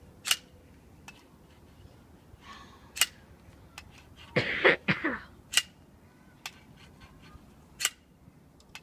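A metal stapler striking the glass neck of a sparkling-wine bottle in a failed attempt to saber it: four sharp clacks about two to three seconds apart, with lighter taps between. A person coughs once about halfway through.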